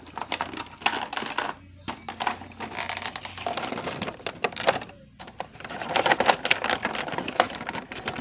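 Clear plastic blister packaging of an action figure crinkling and crackling as hands work it open, a dense, irregular run of clicks and crackles with a short lull about five seconds in.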